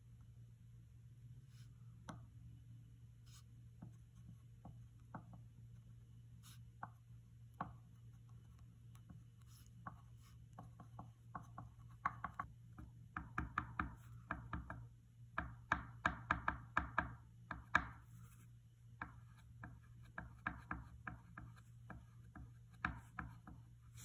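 Tip of a wood-burning pen tapping and dabbing on a spalted maple board as it burns small dots, over a steady low hum. The taps come singly and scattered at first, then in quick runs from about halfway.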